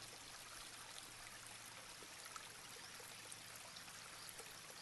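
Near silence: a faint, even hiss of room tone.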